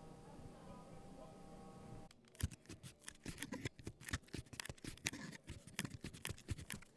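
A faint steady hum, then from about two seconds in a quick, irregular run of sharp clicks and snips, several a second.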